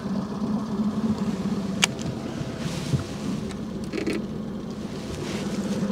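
Small outboard kicker motor running steadily at trolling speed with an even low hum. A single sharp click sounds about two seconds in.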